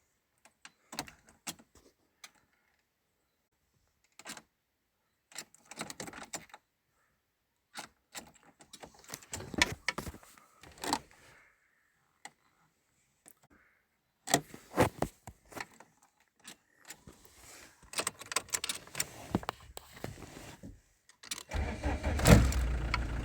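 Keys rattling and the ignition switch of a VW Golf Mk2 clicking again and again as the key is turned with the clutch not pressed, with no start. In the last two seconds a louder, steady low rumble sets in.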